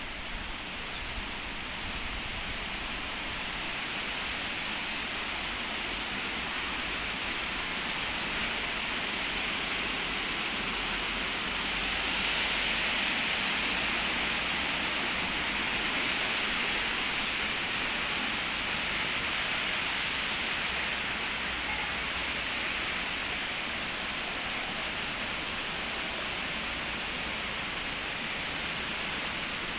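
A small fountain's water spilling over a stone-clad base into a round basin, a steady rushing splash that grows louder past the middle and then eases off.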